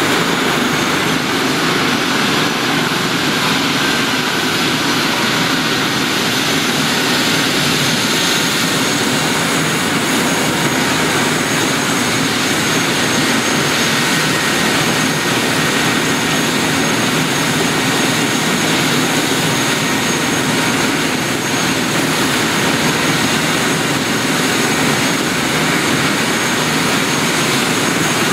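Airbus H145 rescue helicopter running on the ground after landing: its turbine engines and turning rotor give a steady noise with a high, even turbine whine over it.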